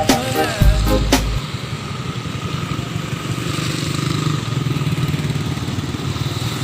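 Background music that ends with a final strike about a second in, followed by an engine running steadily at idle.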